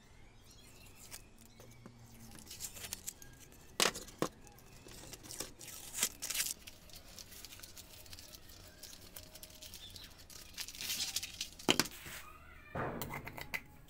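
Small plywood workpieces being handled on a cutting mat: light rubbing and rustling, broken by a few sharp knocks as the wooden parts are set down.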